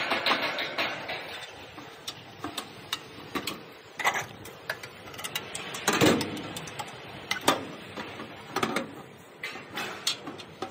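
Irregular clicks and knocks of door-lock hardware being handled and fitted during installation, with the loudest knock about six seconds in.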